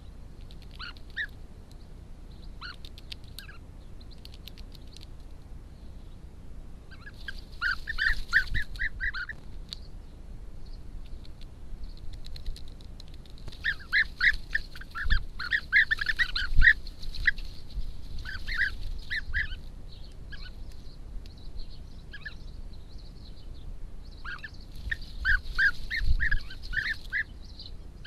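European bee-eaters calling. Short calls come in quick runs of about five a second, in three bouts, with scattered single calls between them.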